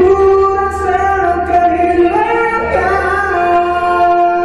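A man singing, holding long notes and sliding from one pitch to the next.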